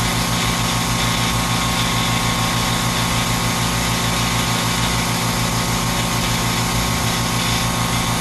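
Electric cold fogger's motor and fan running steadily and loudly while it mists deodorizing liquid into the room, its low hum pulsing at a fast even rate.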